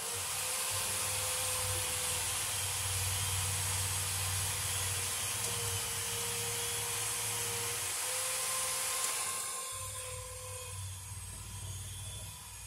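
Electric drill running under load as it bores a hole, with a steady motor whine that dips and recovers slightly in pitch. About ten seconds in it gets quieter and its sound changes.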